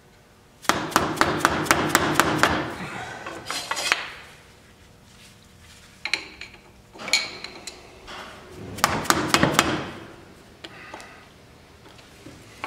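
A mallet tapping a flat screwdriver wedged under the rim of a Polaris Sportsman 500's front hub cover, prying the cover off. The strikes come in quick runs of several a second, with pauses between them.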